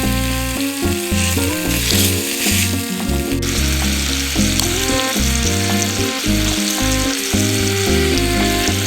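Instrumental background music with quickly changing notes, over a steady high hiss that grows louder about three and a half seconds in.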